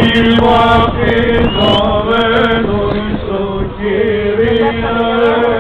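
Male voices chanting in long held notes, a melody moving above a steadier low note.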